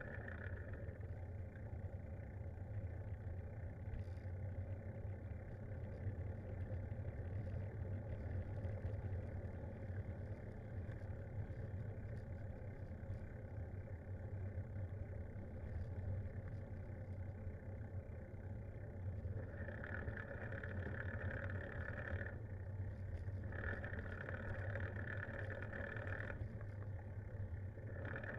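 Steady low rumble of a bicycle ride, tyres rolling on the road with wind on the microphone. A higher hum comes and goes a few times near the end.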